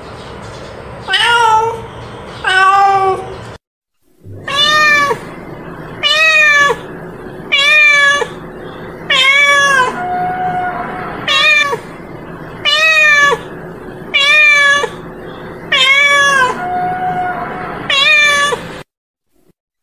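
Female domestic cat meowing over and over, about a dozen long, drawn-out calls at roughly one every one and a half seconds; the cat is calling for a mate.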